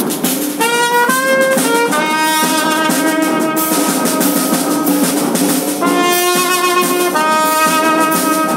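Brass band playing, with tubas, euphoniums and trumpets sounding long held chords over a steady drum beat.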